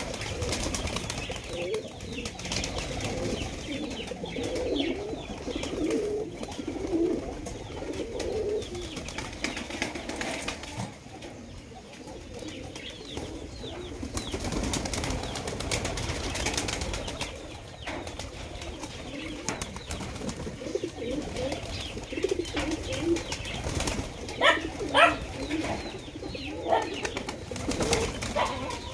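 A flock of domestic fancy pigeons cooing in overlapping low, wavering calls, with brief wing flaps and shuffling now and then. A few sharper, higher calls stand out about three quarters of the way through.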